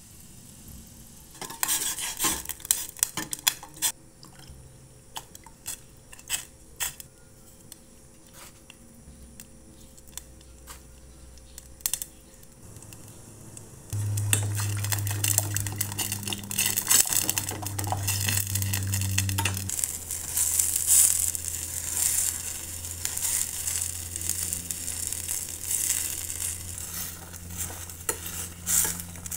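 Metal spoon knocking and scraping against a cooking pot, a quick run of sharp clinks followed by scattered single knocks. About halfway through, a pan of soup broth bubbling at the boil takes over, with more stirring clatter and a low steady hum underneath.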